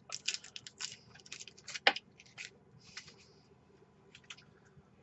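Bouillon cube wrappers being handled and unwrapped: irregular crinkling crackles, thickest in the first couple of seconds and thinning out afterwards, with one sharper tap about two seconds in.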